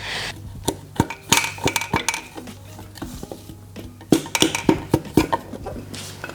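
Hand tools and steel engine parts clinking and tapping against each other, a string of sharp irregular metal clinks, while a connecting-rod cap and piston are worked loose from a Volvo 2.5T five-cylinder block.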